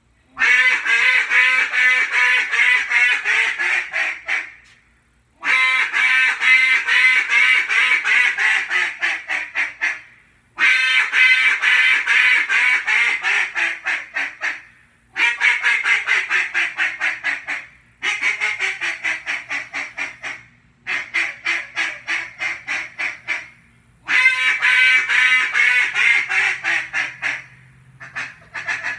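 Acrylic duck call, the Black River Duck Calls Tyrant, blown in about seven runs of rapid quacks. Each run lasts a few seconds and falls in pitch and loudness, with short pauses between runs.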